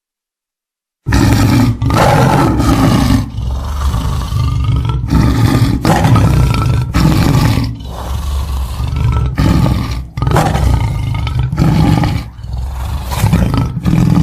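Big cat roaring and growling: about a second of silence, then a run of loud, rough roars with short breaks between them.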